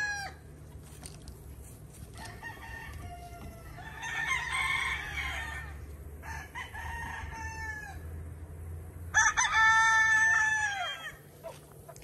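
Gamecock stags and roosters crowing, several overlapping at a distance from the pens, with one loud, close crow about nine seconds in that lasts about two seconds.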